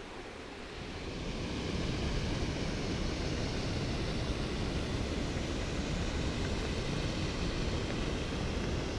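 Mountain stream rushing over boulders in a small cascade: a steady rush of white water that grows louder about a second in, then holds.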